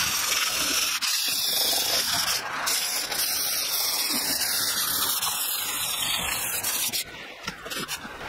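Sandpaper rubbed back and forth over a rusty bandsaw table wet with WD-40, taking off surface rust with a steady scratchy hiss. It stops about seven seconds in.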